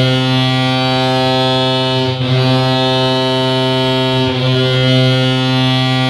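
Colorado Avalanche ice hockey goal horn, edited to sound like the Pepsi Center horn, sounding one long, steady, deep blast that marks a goal scored.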